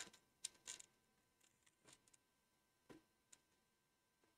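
Faint, irregular clicks and light scrapes of fingers and tweezers fitting a tiny interplane strut into the slots of a model biplane wing, the clearest right at the start.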